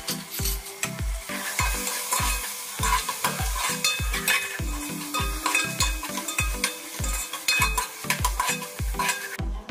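Metal spatula stirring and scraping a sizzling onion-tomato masala in an aluminium pressure cooker, with a rapid run of scrapes and clinks against the pot. The stirring starts about a second in and stops just before the end, over background music with a steady beat.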